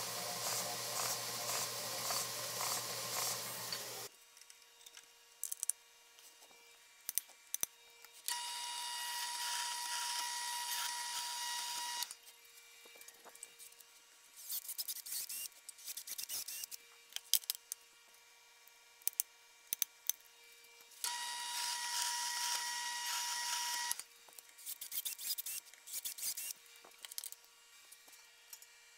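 A belt sander runs as a small piece of metal is held against its belt, stopping about four seconds in. Then a drill runs twice for a few seconds each, boring into a metal part clamped in a vise. Clicks and knocks of handling parts come in between.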